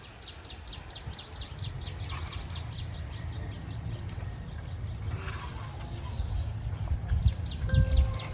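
A bird calling in rapid trains of high chirps, about four or five a second, for the first few seconds and again near the end, over a steady low outdoor rumble with a few thumps near the end.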